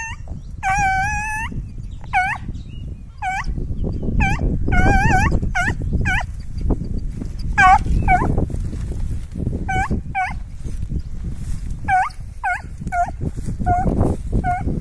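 Petit Basset Griffon Vendéen hound giving voice: a long run of short, high-pitched yelping cries, a few drawn out near the start, typical of a scent hound baying while it works rabbit scent. A steady low rumble underlies it.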